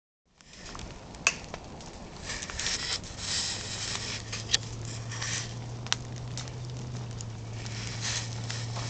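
Fire burning in a metal burn barrel: uneven crackling and hissing with three sharp pops, over a steady low hum.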